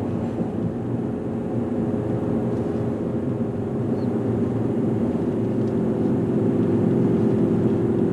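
Pickup truck driving on the road, heard from inside the cab: a steady engine and road drone with a low hum that grows a little louder near the end.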